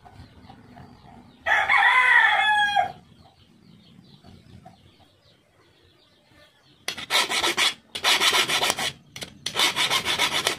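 A rooster crows once, about a second and a half in. From about seven seconds in, a hand file rasps against the end of a metal tube in several quick bursts of strokes.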